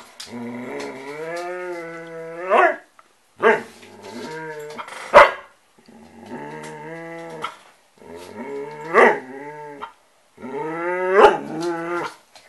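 A border collie-type dog 'talking': about five drawn-out, pitch-sliding vocalisations, most ending in a sharp rising yelp. It is asking to be fed.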